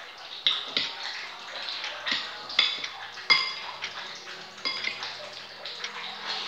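Metal spoon clinking and scraping against a ceramic bowl of fried noodles, several sharp ringing clinks with the loudest a little over three seconds in, between wet eating and slurping sounds.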